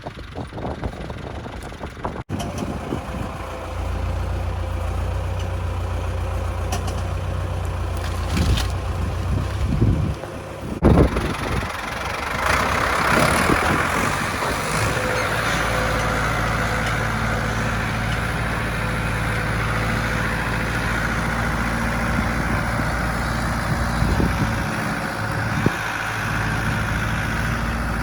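Heavy machinery engine running steadily, with abrupt changes about two seconds in and again around eleven seconds, after which the running sound grows fuller.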